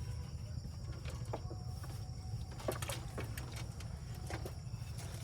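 Outdoor ambience: a steady low rumble with a few short bird calls scattered through it.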